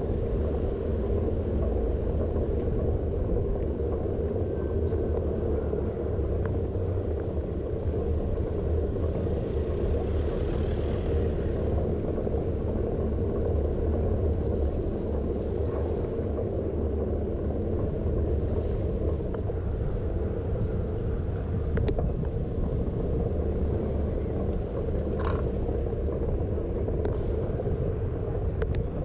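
Steady low rumble from riding a bicycle over stone paving: tyre noise and wind on the microphone, unchanging in level throughout.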